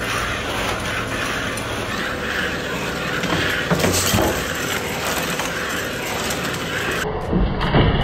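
Treadmill belt running under a LEGO Technic Volvo articulated hauler, with loose Technic beams clattering as they spill off its overloaded dump body; a few sharper knocks come about four seconds in and near the end.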